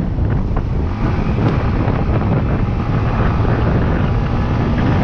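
Wind buffeting the microphone of a moving motorcycle, a steady low rumble over the running of the bike's engine.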